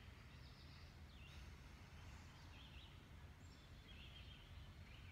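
Faint outdoor background: distant birds chirping every second or so over a low steady rumble.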